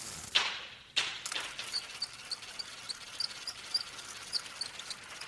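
Fishing rod and spinning reel: a quick swish, a sharp click about a second in, then the reel running with a steady hiss and small ticks a few times a second.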